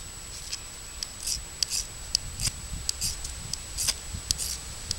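Steel striker scraping down a ferrocerium rod in short, repeated strokes, about a dozen rasping scrapes at an uneven two to three a second: repeated strikes to throw sparks into tinder that has not yet caught.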